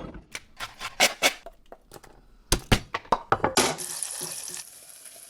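Kitchen prep sounds: a string of sharp knocks and clicks from utensils and dishes, with about a second of running liquid a little past the middle.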